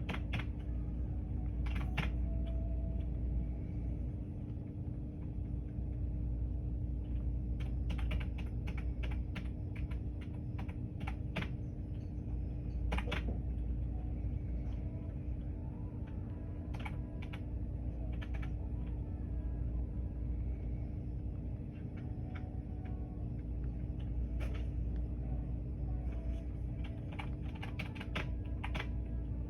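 Typing on a computer keyboard: irregular clusters of key clicks, over a steady low hum.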